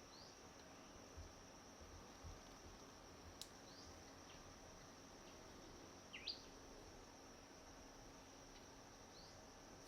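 Faint forest ambience: a steady high insect drone, with a few short rising bird chirps, the loudest about six seconds in. A single sharp click comes a little after three seconds.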